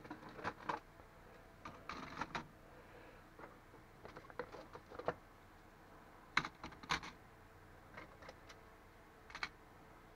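Printed circuit boards being laid one by one onto a stack on a scale: scattered light clacks and knocks as board edges and components hit each other, with quiet gaps between.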